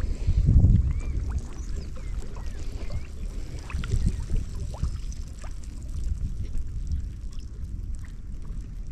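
Open-air waterside ambience: a low, uneven rumble of water and wind, loudest in the first second, with faint short bird chirps scattered through.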